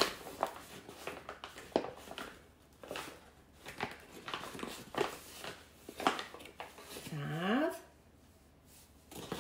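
Measuring cup scooping bread flour out of a paper flour bag and tipping it into a stainless steel mixing bowl: paper bag rustling, scraping and soft knocks. A short rising pitched sound about seven seconds in.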